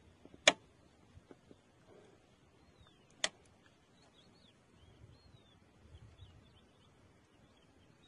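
Two sharp cracks, the first the louder, about half a second in and again about three seconds later, over a quiet outdoor background with faint high chirping of small birds in the second half.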